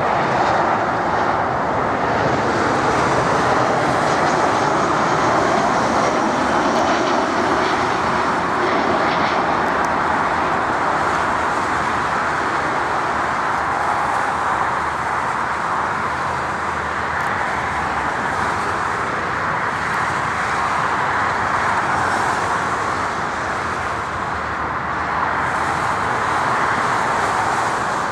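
Airbus A319 airliner's jet engines running steadily as it comes in to land, with a faint high whine over the noise in the first few seconds.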